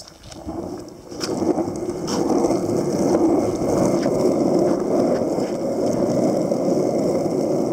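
Skateboard wheels rolling on asphalt: a steady rumble that builds over the first second as the rider pushes off, then holds, with a few sharp clicks over it.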